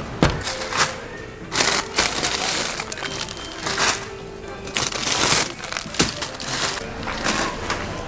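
Plastic packaging of frozen food crinkling in repeated short bursts as it is handled, with a few sharp clicks, over background music.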